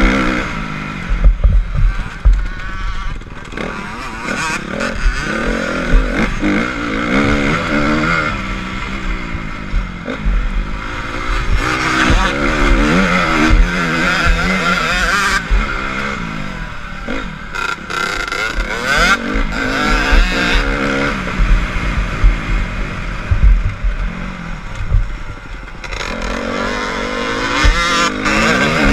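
Honda CRF250 four-stroke single-cylinder motocross engine under hard riding, its pitch rising and falling over and over as the rider revs through the gears. Frequent low thuds and wind noise on the helmet-mounted camera.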